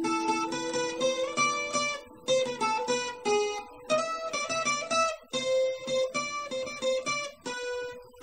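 Background music: a plucked acoustic string instrument picking a melody of separate notes, with short pauses between phrases.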